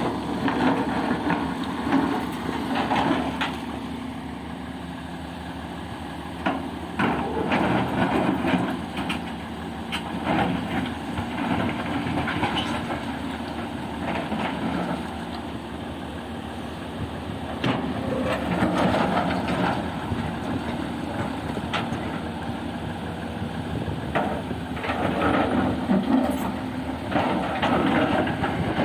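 Heavy diesel machinery running: a steady engine hum with louder, rattling stretches that come and go every few seconds.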